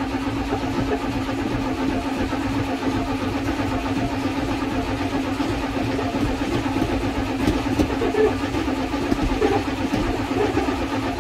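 A 1981 Dodge Ram D250's 318 V8 being cranked over by its starter on the key in one long, unbroken stretch. This is a sign that the new carburetor's float bowl is still being filled by the fuel pump and the engine has not yet caught.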